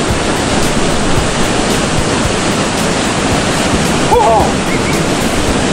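Waterfall pouring into its plunge pool: a steady, even rush of water. A short voice sounds briefly about four seconds in.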